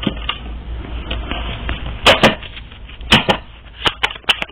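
Tarot or oracle cards being handled: a rustling shuffle, then several sharp snaps and taps as cards are worked and laid down.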